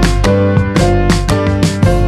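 Instrumental background music with a regular beat and sustained notes over a strong bass.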